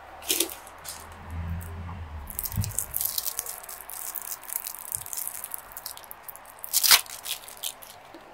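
Plastic lollipop wrapper crinkling and crackling as it is peeled off by hand, in quick irregular crackles, with the sharpest crackle near the end as the wrapper comes free.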